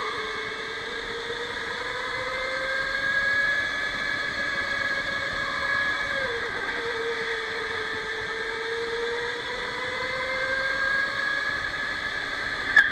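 Electric go-kart's motor whining, its pitch rising and falling with speed: it drops about halfway through as the kart slows for a corner, then climbs again, over tyre and wind noise. A short sharp knock near the end.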